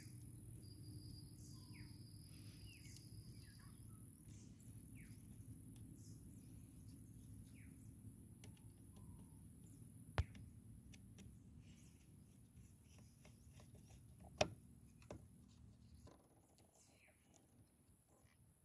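Near silence: faint bird chirps over a low hum, with two short sharp clicks about ten and fourteen seconds in while the negative battery lead is being fitted.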